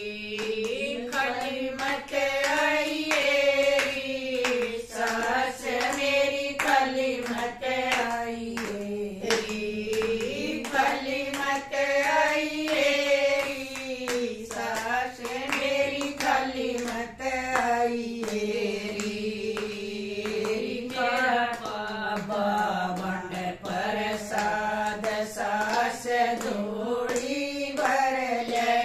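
A small group of women singing a Haryanvi devotional bhajan together in unison, keeping time with rhythmic hand claps and no instruments.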